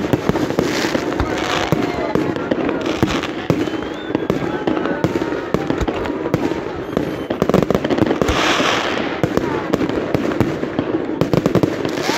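Aerial fireworks display: a dense, continuous run of bangs and crackling from shells bursting overhead, with louder bursts about a second in and again about eight seconds in.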